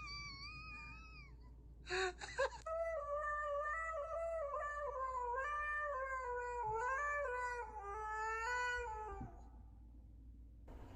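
A cat calling: a short wavering meow, a brief clatter, then one long drawn-out yowl of about six seconds whose pitch wavers up and down in steps.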